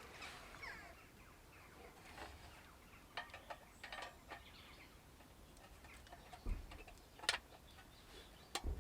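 Faint clicks and light knocks of small metal stove-kit parts being handled and fitted together, with a dull thump about six and a half seconds in and a sharp click shortly after.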